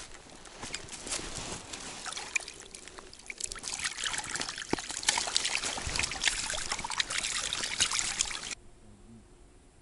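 Water splashing and trickling as hands work a caught fish into a mesh keepnet in the shallows, with dry reed stems rustling and crackling. The sound stops abruptly about a second before the end.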